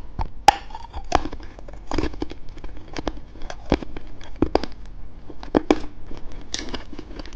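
Plastic candy packaging crinkling and clicking as it is handled and opened, in many irregular sharp crackles.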